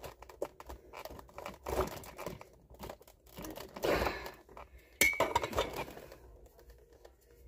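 Toy packaging being handled and pulled open: irregular crinkling and rustling of plastic and cardboard, with a sharp clack about five seconds in.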